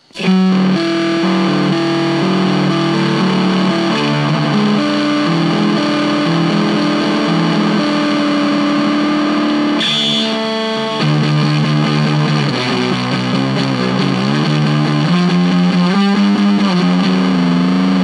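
Electric guitar played through a Stewmac Sun Fuzz pedal, a Fuzz Face-style clone, fitted with BC549C silicon transistors and the fuzz set at 3 o'clock. It gives a distorted fuzz tone on a run of held notes and chords.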